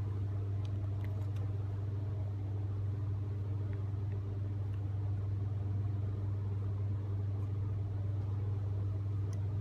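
Steady low hum of rooftop HVAC equipment running, constant in pitch and level.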